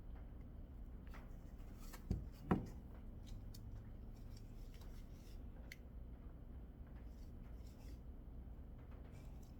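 Hands working with coilover parts and their packaging: faint clicks and rustling, with two sharp knocks about two seconds in, the second one louder.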